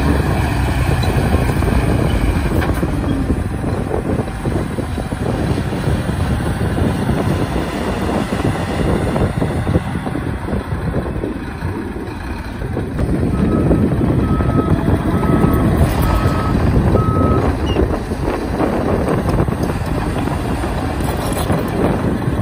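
Heavy diesel engines of a Shantui DH17 bulldozer and a Shacman dump truck running hard as the dozer pushes the stuck truck through soil. About two-thirds of the way in, a reversing alarm beeps about five times.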